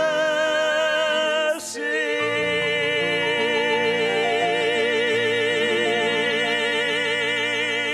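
A male and a female singer in duet holding long notes with wide vibrato over soft sustained accompaniment, breaking briefly for a breath about one and a half seconds in and then sustaining one long final note together.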